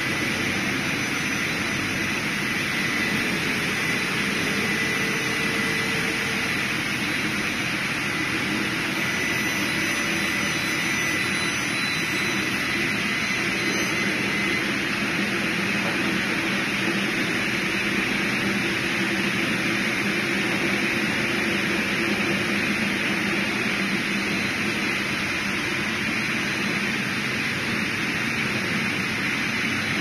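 Sliding-carriage log sawmill running, an even, loud mechanical noise with no pauses, and a faint high whistle through the first half.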